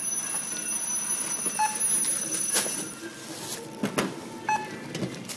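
Supermarket checkout beeping: two short single beeps, about three seconds apart, over the background noise of the till, with a couple of sharp knocks in between.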